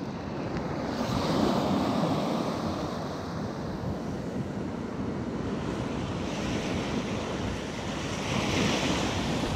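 Small Atlantic surf waves breaking and washing up over the sand at the water's edge. The wash grows louder about a second in and again near the end.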